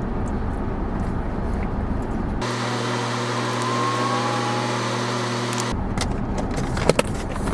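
Car running, heard from inside, with steady low rumble and a few light clicks. In a middle stretch of a few seconds, cut in abruptly, a steady multi-tone hum with a faint rising whine replaces it.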